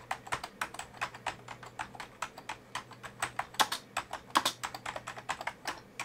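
Typing on a 1994 Compaq KPQ-E99AC rubber-dome keyboard: an uneven, quick run of key clicks, several a second.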